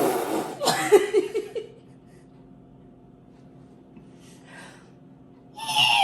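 A person making silly vocal noises with the mouth: a loud breathy blast followed by quick pulsing voice sounds, then after a pause a high squeal that slides down in pitch near the end.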